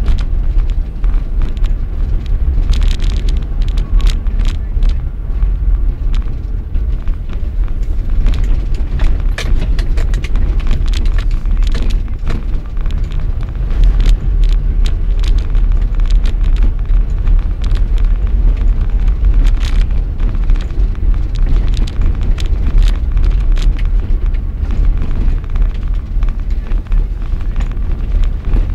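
A vehicle on the move, its running and road noise buried under heavy wind buffeting on the microphone, with frequent crackles throughout.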